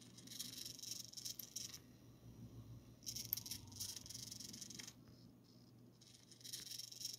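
Small hobby servo throwing a model railway turnout, buzzing and rattling as it sweeps slowly. It runs three times, each sweep lasting about one and a half to two seconds.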